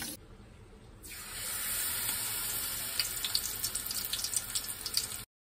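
Battered cabbage deep-frying in hot oil in a small frying pan: a steady sizzle that starts about a second in, with crackling pops from about three seconds in, cutting off suddenly near the end.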